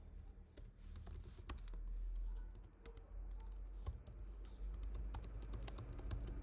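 Typing on a computer keyboard: irregular key clicks, bunched closer together in the second half, over a low steady hum.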